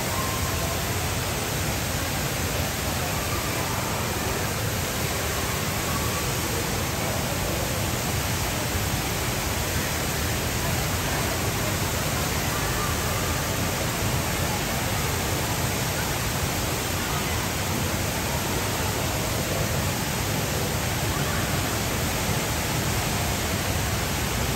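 Steady rush of a very large indoor waterfall, the Rain Vortex, pouring down from the glass dome into its pool, with faint voices of people in the background.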